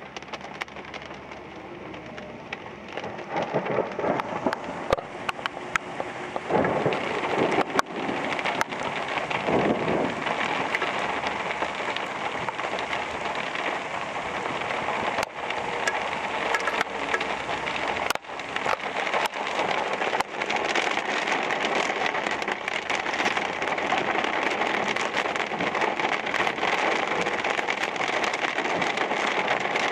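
Heavy rain pelting a car's windshield and body, heard from inside the car: a dense hiss full of sharp drop impacts, growing louder about three seconds in as the squall line's downpour arrives.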